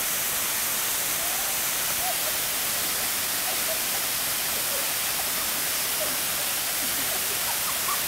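Steady rushing of a small waterfall pouring into a pool.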